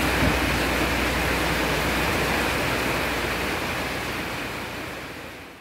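Jeep Wrangler JK's 3.8-litre V6 running, heard at the tailpipe as a steady rushing exhaust hiss over a low rumble, while it clears the DCS cleaning fluid out through the exhaust after a tune-up. The sound fades out near the end.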